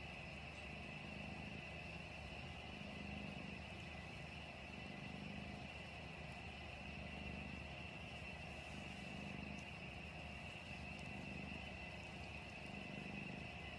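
A domestic cat purring faintly, a low rumble that swells and fades with each breath about every second and a half.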